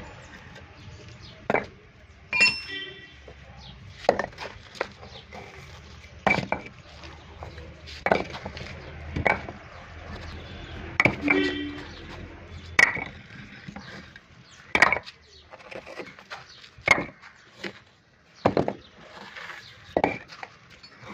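Concrete paver blocks being knocked loose and lifted out: sharp knocks and clinks about every two seconds, a couple with a short metallic ring.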